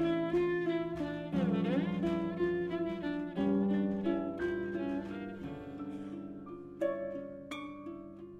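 Harp and violin playing together in an Indian-influenced piece: a stream of plucked harp notes over long held violin notes that slide in pitch. Near the end the playing thins to a few scattered plucks.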